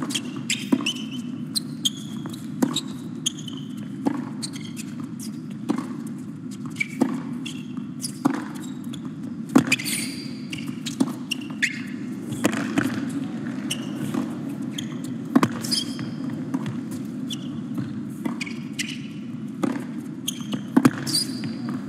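Tennis rally on an indoor hard court: racquets strike the ball back and forth about every second and a half, with short shoe squeaks between shots, over the steady low murmur of the arena.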